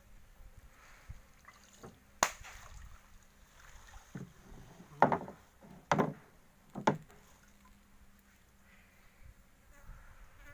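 Four sharp knocks on a small boat, about two, five, six and seven seconds in, over a faint steady hum.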